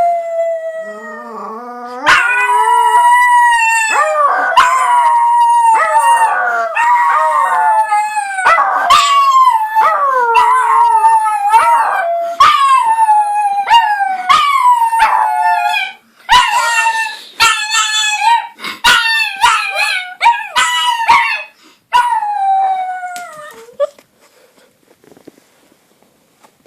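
A Yorkshire terrier and a Chinese crested dog howling together, a long run of howls that mostly slide down in pitch, broken by short pauses, dying away near the end.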